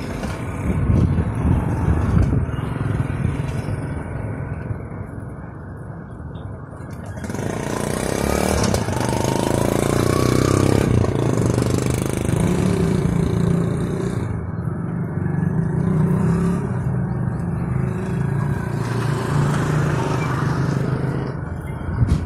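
Motor vehicle engines running steadily, growing louder from about seven seconds in, with a low, steady engine drone through the second half.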